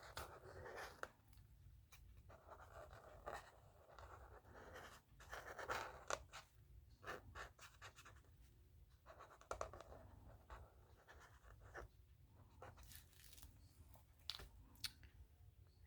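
Faint scratching of a pen on paper as letters are drawn, in short strokes with brief pauses and a few small taps.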